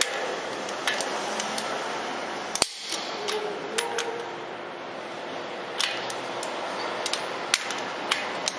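Ratchet wrench clicking in short runs as it is swung back and forth, tightening the knife-clamp bolts on a plastics granulator rotor, with one louder sharp metal knock about two and a half seconds in, over steady background noise.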